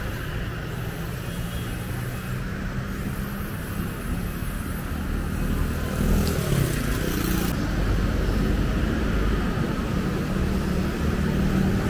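Street traffic: motorcycle and car engines running past on a wet road, with a steady low hum and tyre noise. A vehicle passes close about six seconds in, briefly louder.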